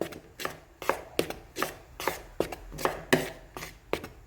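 Dry flour mixture being stirred in a mixing bowl, the utensil knocking against the bowl in a quick, uneven run of about two or three knocks a second.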